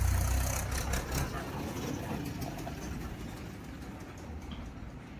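Freshly rebuilt Hero Passion Pro single-cylinder four-stroke motorcycle engine running. It is louder for about the first second, then settles to a steady idle.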